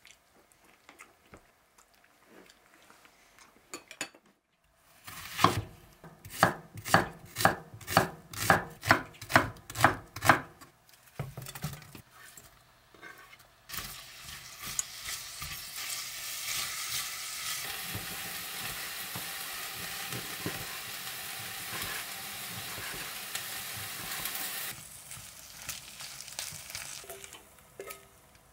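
About a dozen steady knife strikes on a cutting board, then sliced onions sizzling as they fry in a small hammered pot, stirred with a silicone spatula until soft and golden.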